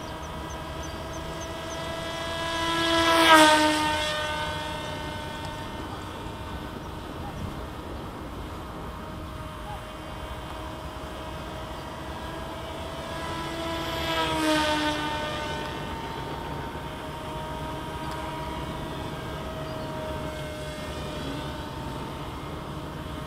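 Electric motor and propeller of a C1 Chaser 1200 mm RC flying wing, humming steadily at a high pitch while it flies. Twice, about three seconds in and again about eleven seconds later, the wing passes close by: the sound swells and its pitch drops as it goes past. The first pass is the louder.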